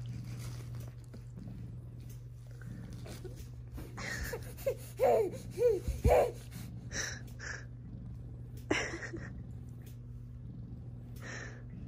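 Baby babbling and cooing in short squeals that rise and fall, clustered about four to six seconds in, with a few breathy sounds later, over a steady low hum.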